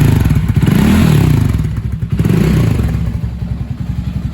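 Loncin LX300 water-cooled single-cylinder motorcycle engine running, revved up and back down twice, then settling to a steady even idle. No knock is heard: the decompressor that was striking the hydraulic lifter has been removed.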